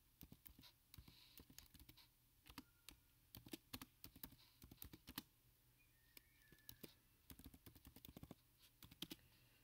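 Faint typing on a computer keyboard: runs of quick key clicks with short pauses between them as a database query is typed.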